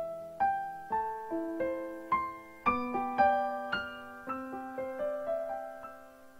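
Background music: a slow piano melody of single struck notes, each ringing and fading, with no singing.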